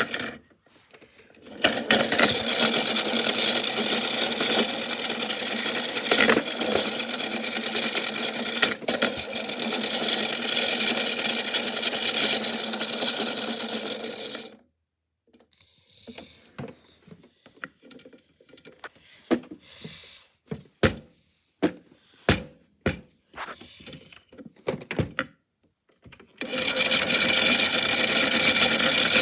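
Washing machine with a big rock inside the drum: a loud continuous grinding rattle that stops about halfway, leaving scattered sharp knocks, then starts up again near the end.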